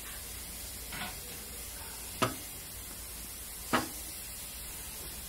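Sharp metal clanks from coupling a steam locomotive to its coaches: a faint one about a second in, then two loud ones about a second and a half apart, over a steady hiss.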